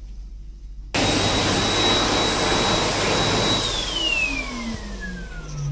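Electric hand dryer switching on abruptly with a loud rush of air and a high motor whine. After about three seconds it cuts out, and the whine falls steadily in pitch as the motor spins down.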